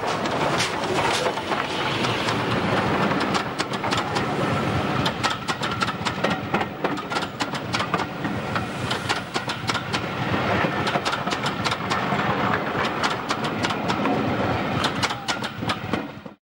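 Double-headed steam train passing close by, Schools class 4-4-0 No. 30926 Repton and rebuilt West Country Pacific No. 34101 Hartland: the locomotives go by first, then the coaches roll past with a rapid clatter of wheels over rail joints. The sound cuts off just before the end.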